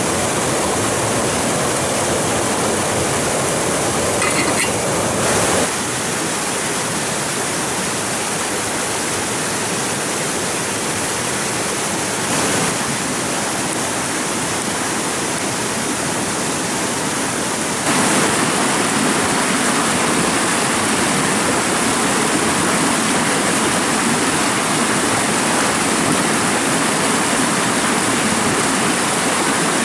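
Rushing water of a stream or small waterfall, a steady unbroken wash that turns a little quieter about five seconds in and louder again about eighteen seconds in.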